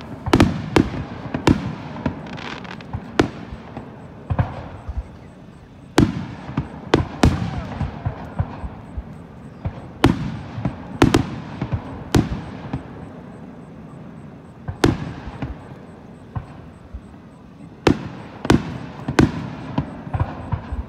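Aerial firework shells bursting, a string of sharp bangs that come in irregular clusters of two to four every few seconds, each trailing off in an echo.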